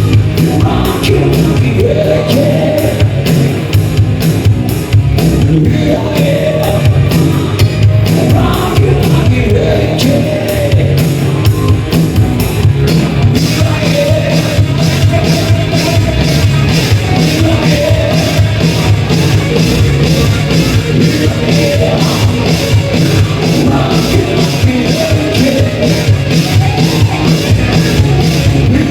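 A live rock band playing loudly: electric guitar, bass and drum kit, with the cymbals keeping a fast, even beat from about halfway on.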